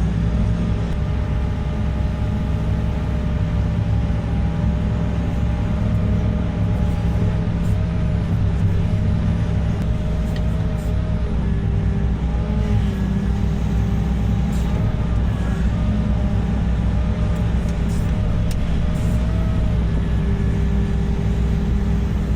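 Heavy diesel engine of construction machinery running steadily, with a fainter whine that wavers up and down in pitch.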